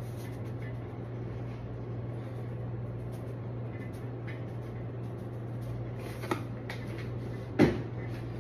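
Steady low room hum with faint taps and rustles of a small plastic seasoning container being shaken over a glass bowl of raw eggs, and a sharp knock near the end.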